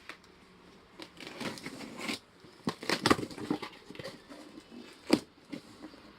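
Cardboard box and packaging being opened and handled: irregular rustling and crinkling, with a few sharp knocks, the loudest about five seconds in.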